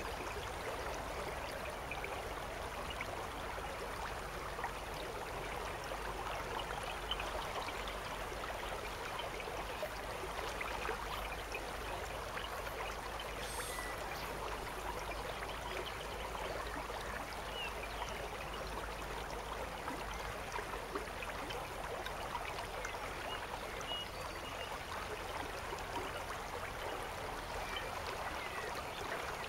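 Shallow river flowing with a steady rush of water.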